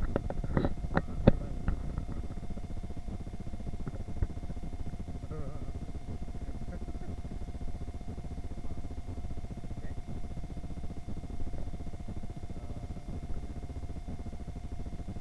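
Supermarket aisle ambience: a few sharp knocks in the first second and a half, then a steady low rumble under a faint steady hum.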